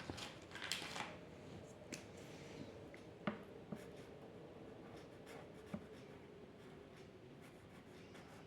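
A drawing tool scratching on paper in short strokes, the longest a little under a second in, with a few light taps later on. A faint steady hum runs underneath.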